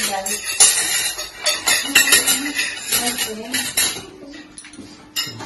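Serving spoons and forks clinking and scraping against plates, bowls and foil trays as several people dish up food. The clinks come thick and fast at first and thin out over the last second or so.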